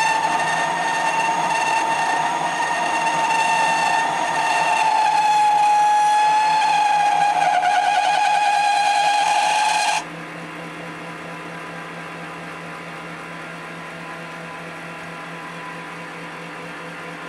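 Boring bar chattering in a cut on an MX-210V mini lathe: a loud, high squeal that wavers and dips in pitch, from the slender bar flexing. About ten seconds in it stops suddenly, leaving the steady hum of the lathe running.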